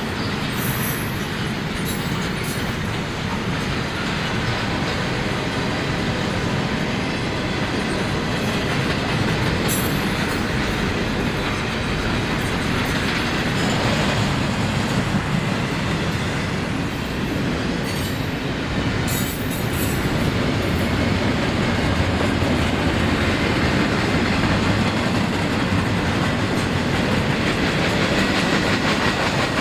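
Train cars rolling past, wheels clacking steadily over the rail joints, with a few brief high squeals from the wheels.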